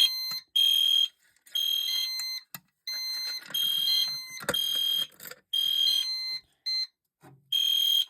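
Fire alarm horn sounding in alarm on an EST Fire Shield system, triggered by a pull station. It gives repeated high-pitched electronic blasts of about half a second each, roughly one a second.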